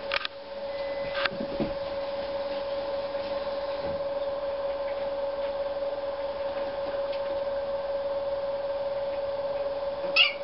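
A steady, even machine hum at one pitch, with a couple of light clicks in the first second and a brief sharp high-pitched sound near the end.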